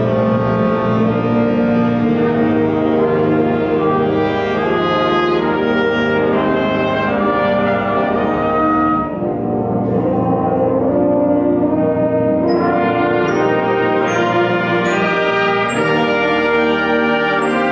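A school wind ensemble plays sustained full chords. Short, high ringing notes come in about twelve seconds in.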